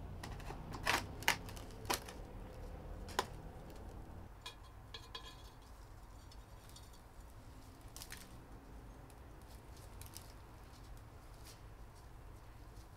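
Gloved hands handling a plant pot and succulent cuttings while planting: about four light clicks in the first three seconds, then faint rustling and the odd tick.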